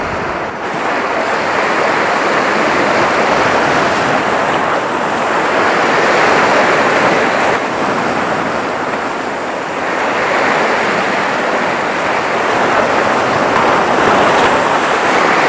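Sea surf breaking and washing over a rocky shoreline, a steady rush of foaming water that swells and eases in surges, with a brief lull a little past halfway.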